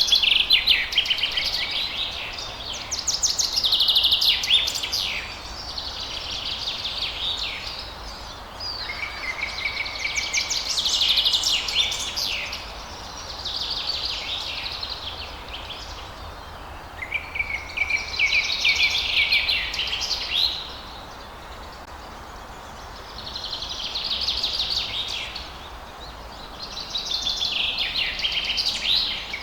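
Songbirds singing at dawn: about eight high-pitched phrases of rapid trills and chirps, each a second or two long with short pauses between, some ending on a lower held note. A faint steady background noise runs underneath.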